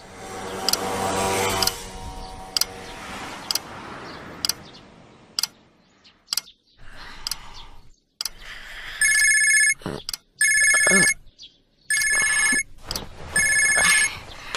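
Telephone ringing with an electronic trill, five rings about a second and a half apart, starting about two-thirds of the way in. Before it, a wash of noise with scattered clicks.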